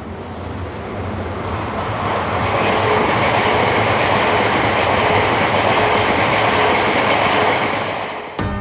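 A train passing: a rushing rumble that grows louder, holds, then fades away. Plucked-string music comes in right at the end.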